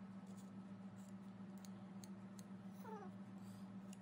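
Faint room tone with a steady low hum and a few light ticks, and one short, faint cat meow falling in pitch near the three-second mark.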